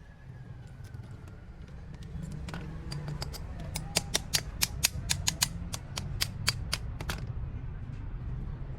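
A run of sharp mechanical clicks or taps, about three or four a second, over a steady low hum.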